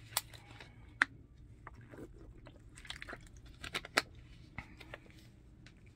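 Clear plastic water bottle being handled: scattered crinkles of the thin plastic and sharp clicks, loudest around the first second and about four seconds in.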